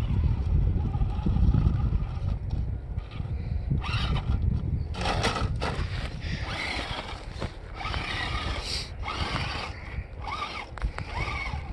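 RC rock crawler's electric motor and drivetrain whining in short bursts as it strains to climb steep rock, the pitch rising and falling, over a low rumble of wind on the microphone.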